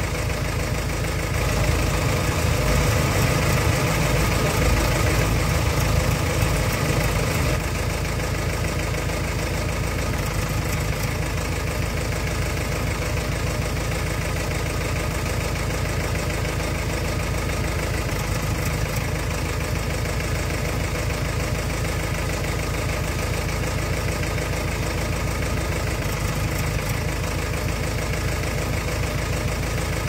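JCB 3DX backhoe loader's diesel engine running steadily, louder for about five seconds near the start while the backhoe arm with its block-grab attachment is worked.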